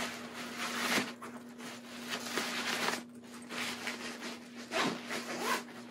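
Fabric packing cube and clothes rustling and rubbing as items are pushed in and the cube is handled and zipped, with a couple of light knocks.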